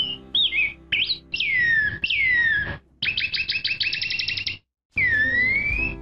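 Black-backed grosbeak (rei-do-bosque) singing loud, clear whistled phrases: short slurred notes, then two long whistles falling in pitch, then a quick run of about a dozen short notes, and near the end a whistle that dips and rises again.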